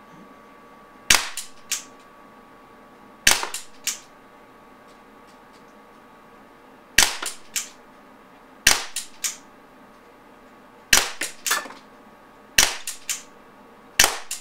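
Walther Nighthawk .177 CO2 pellet pistol fired seven times at an uneven pace, one to three seconds apart. Each shot is a sharp pop, followed about half a second later by one or two fainter clicks.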